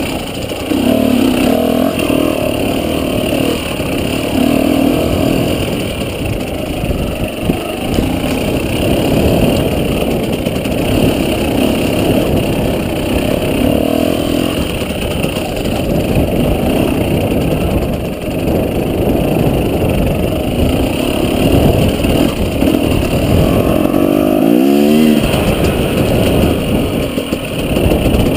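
Husqvarna dirt bike engine running under changing throttle, revving up and down while riding over rough ground. Near the end there is a quick, steep rise in revs.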